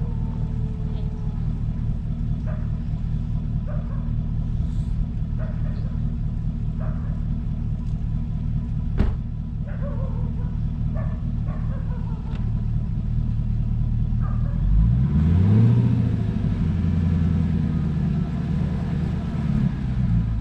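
Car engine idling steadily, then revving up about three-quarters of the way through with a rush of noise, as the car is driven against deep snow it is stuck in.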